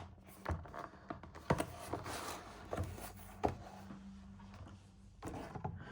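Product packaging handled and opened by hand: a few sharp taps and knocks, with a stretch of rustling about two seconds in.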